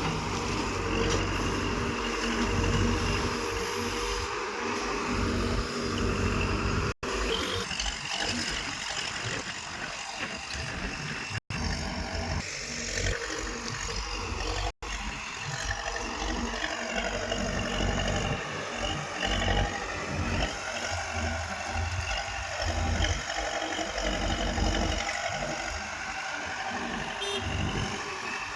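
Diesel engines of a bulldozer and a tractor running under load while moving soil, with shifting engine pitch. The sound cuts out briefly three times.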